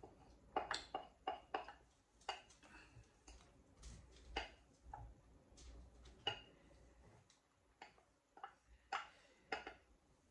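Light, irregular clinks and taps from a glass mixing bowl being tipped and knocked to shake the last ground turkey out onto a platter, a dozen or so short taps.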